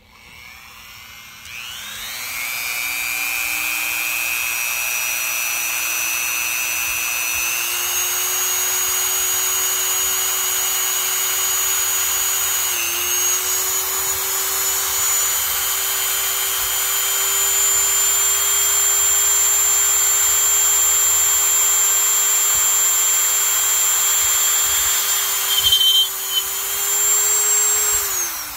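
A small electric power tool's motor spins up in the first two seconds, runs steadily with a whine whose pitch creeps slightly higher, and winds down at the very end. There are a few louder knocks shortly before it stops.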